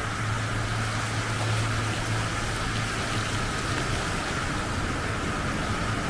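Water from an upward-flowing waterfall fountain rushing and splashing steadily, over a steady low hum.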